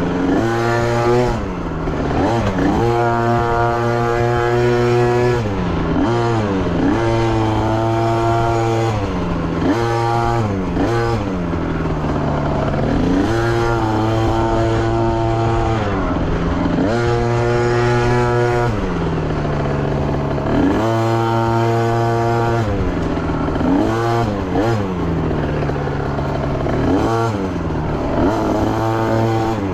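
Dirt bike engine ridden hard, revving up and easing off again and again: its pitch climbs, holds for a second or two, then drops, every few seconds.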